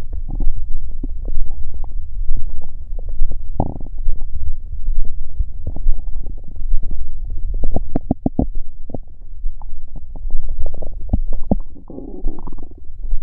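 Stomach and intestines growling and gurgling over a steady low rumble. About half a dozen quick pops come in a run a little past halfway, and a bubbling gurgle comes near the end.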